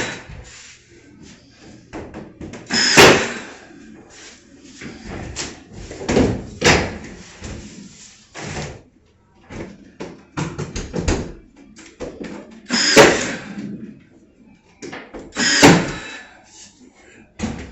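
Pneumatic nail gun firing four times, each shot a sharp bang with a short hiss, with smaller knocks and bumps of ceiling boards in between.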